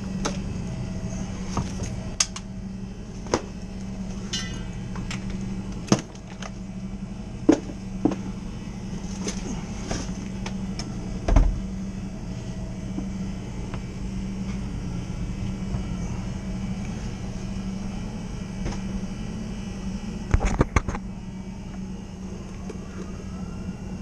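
A machine hums steadily under scattered clicks and knocks of refrigeration equipment and hoses being handled, with a heavier thump a little before the middle and a cluster of knocks near the end.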